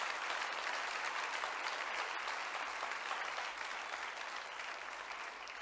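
Studio audience applauding, dying down gradually near the end.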